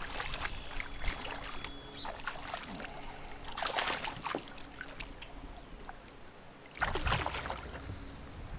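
Water splashing in short bursts as a hooked bass thrashes at the surface beside a kayak, the heaviest splashes about halfway through. Near the end a steady low rumble takes over.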